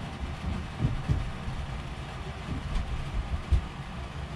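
A low steady rumble with a few soft bumps, about a second in and again past three seconds.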